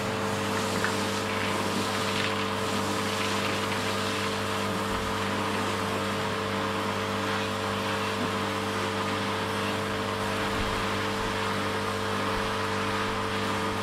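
Kärcher electric pressure washer running. Its motor and pump give a steady hum under the hiss of water jetting from the spray lance as foam is rinsed off a van's panels.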